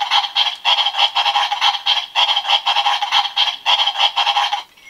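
DX 4-Koma Ninpo-to toy sword playing its electronic Bunshin no Jutsu (clone technique) sound effect through its built-in speaker: a loud, rapid pulsing at about four to five pulses a second that cuts off suddenly near the end.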